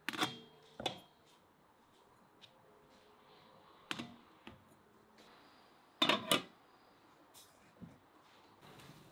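Aluminium manty steamer tiers and lid clanking against the pot as they are set in place: sharp metal knocks with brief ringing, two near the start, two about four seconds in, and the loudest pair about six seconds in.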